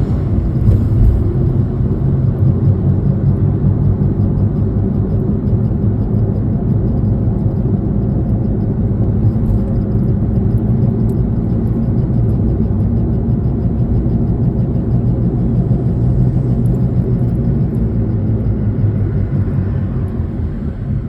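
Steady low rumble of a car driving, heard from inside the cabin, easing off slightly near the end.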